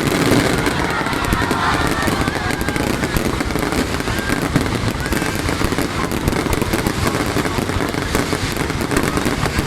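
Fireworks going off in a dense, continuous crackling barrage of rapid pops and bangs.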